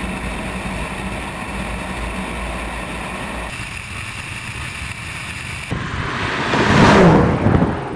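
Tesla Model S and BMW M5 drag racing: steady wind and road rush from a camera mounted on one of the cars at speed, changing abruptly twice, then, about seven seconds in, the cars speed past with a falling pitch.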